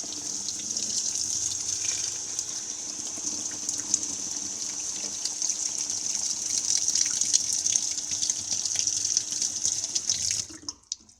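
Washing machine running water: a steady hiss of rushing water with a low hum under it, cutting off suddenly about ten and a half seconds in.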